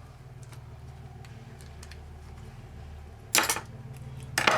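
Two loud sharp clatters of parts being pried apart as the inner plate is worked out of a small electric motor, about three and four and a half seconds in, over a faint low hum.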